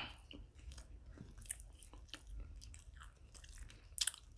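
A person chewing a mouthful of paratha and curried chicken liver close to the microphone: soft wet smacks and small mouth clicks, with a sharper smack about four seconds in.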